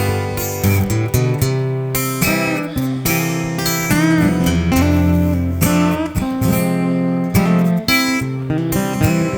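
Instrumental break of a country song: acoustic guitar strummed, with a lead line of notes that bend in pitch over it.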